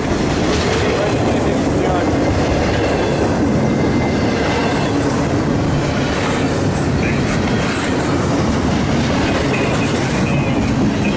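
Freight train rolling past at close range: a loud, steady rumble of wheels on rail that holds without a break.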